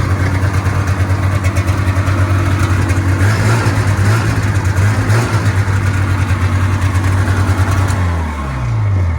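A vintage snowmobile's two-stroke engine running steadily near idle. It revs up slightly about three seconds in, and near the end its pitch falls as it slows.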